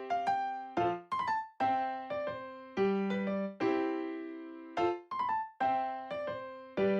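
Background music: a light piano-like keyboard tune of struck notes in a steady rhythm.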